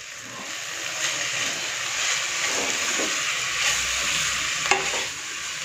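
Julienned cabbage, carrot and green capsicum sizzling in hot oil in a kadai while being stirred with a wooden spatula, a steady frying hiss, with a short knock near the end.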